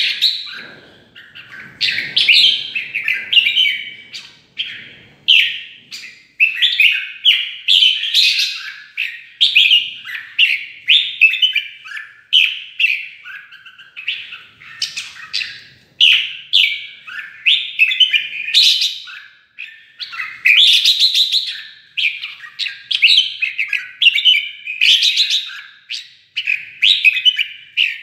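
Red-whiskered bulbul singing its competitive fighting song: short, loud whistled phrases coming one after another every second or two.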